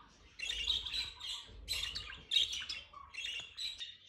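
Budgerigars chattering: about five short bursts of scratchy chirps and squawks with brief pauses between them.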